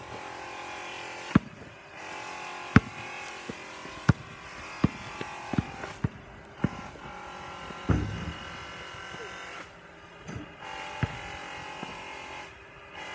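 A basketball bouncing and dribbling, with irregular sharp thuds and one heavier thump about two-thirds of the way through. Under it runs the steady buzz of a running machine, cutting out briefly a few times.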